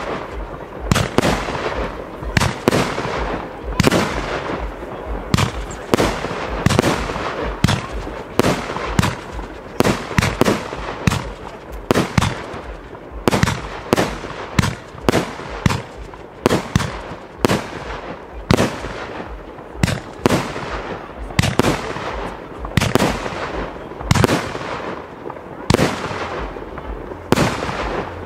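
Aerial fireworks display: sharp bangs one after another, about one to two a second, with crackling between them.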